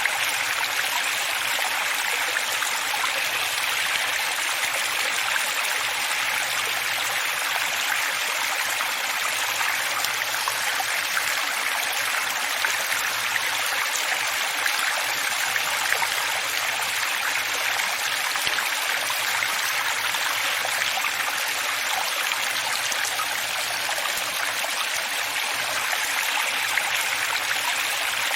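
Running water flowing steadily, an even, unbroken rushing sound.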